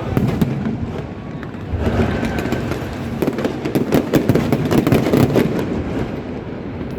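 Fireworks bursting and crackling in a rapid, dense string of pops, thickest in the middle.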